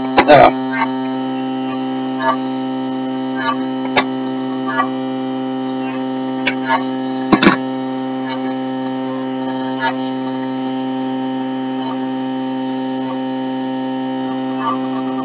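Steady electrical hum with a buzz of overtones from a small fan motor and coil rig running on the bench. Sharp clicks and taps, loudest just after the start and about halfway through, come from test leads and hands on the wiring.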